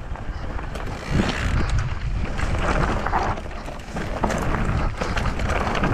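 Wind buffeting the action camera's microphone and tyres rolling over loose gravel and stones as a Mondraker Crafty Carbon XR electric mountain bike descends a dirt trail, with scattered clicks and knocks from the bike. The noise grows louder about a second in as the bike picks up speed.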